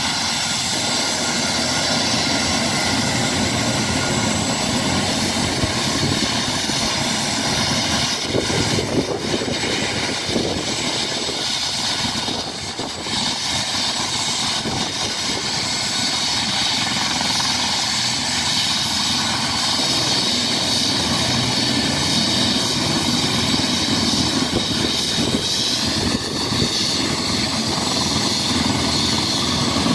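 Eurocopter EC135 air ambulance helicopter running on the ground with its main rotor turning: a steady high turbine whine over a fast rotor beat. About three-quarters of the way through, the whine rises slightly in pitch.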